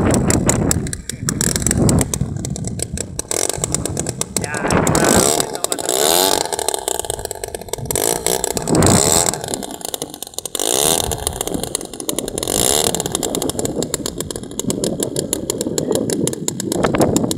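The 50cc gasoline engine of a large RC plane running, its pitch rising and falling several times.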